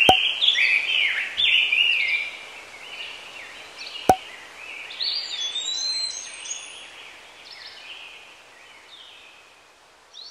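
Birds chirping and whistling: many short chirps, thick at first and then thinning out and fading toward the end. Two sharp clicks, one at the start and one about four seconds in.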